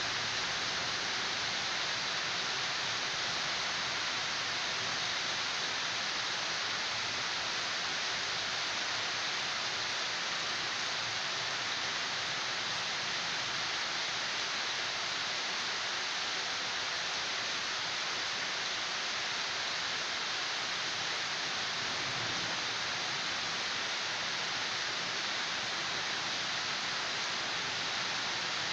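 Steady rain falling during a thunderstorm, an even hiss that does not change.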